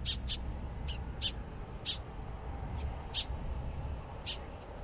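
Short, sharp bird calls repeated at irregular intervals, about eight in under five seconds, over a steady low rumble.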